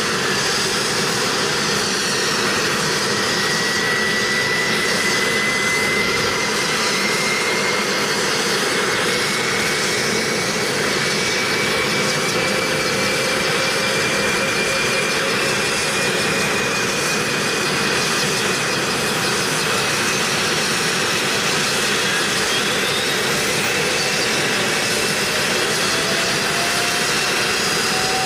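Twin T700 turboshaft engines of a Sikorsky Seahawk helicopter running on the ground, a steady loud rush with a high turbine whine that rises slowly in pitch.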